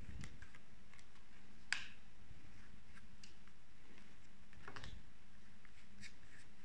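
Divination cards being drawn from the deck and laid down one at a time on a cloth mat: a few light, scattered clicks and taps of card on card. One sharp click comes just under two seconds in, and a cluster of clicks comes near the end.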